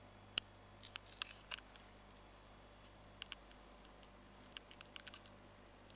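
Faint, irregular small clicks and ticks, a few at a time, over a steady low hum.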